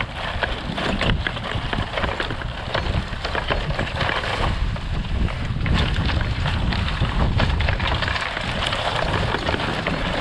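Chain-link fence drag weighted with wooden pallets scraping and rattling over dry pasture ground as it is towed, breaking up dried manure piles, a dense run of small knocks over a steady scraping noise. Wind rumbles on the microphone underneath.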